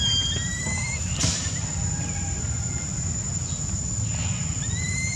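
A steady high insect drone runs under a low outdoor rumble, with a few short rising chirps near the start and again near the end. A single sharp click comes about a second in.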